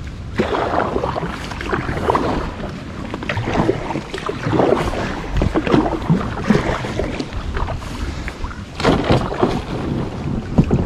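Kayak being paddled against the river current toward the bank: irregular paddle splashes and water sloshing at the hull, with wind buffeting the microphone.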